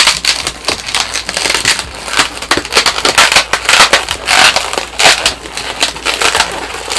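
Inflated latex twisting balloons being twisted and rubbed against each other and the hands, a dense, irregular run of short rubbing and crackling noises.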